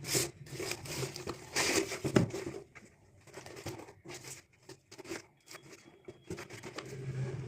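Rustling, tearing and crinkling of toy packaging being handled and opened by hand, with scattered clicks and taps. The busiest handling falls in the first two seconds or so, then lighter clicks follow.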